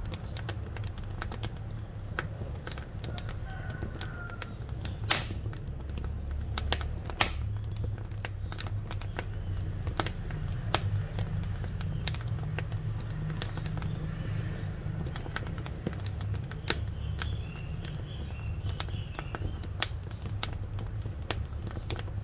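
Firewood burning in a wood-fired stove, crackling with irregular sharp pops over a low steady rumble of the fire. A couple of louder pops come about five and seven seconds in.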